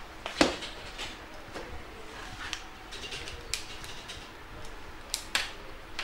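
Objects handled on a desk: one sharp knock about half a second in, then a few lighter clicks and taps, over a faint steady room hum.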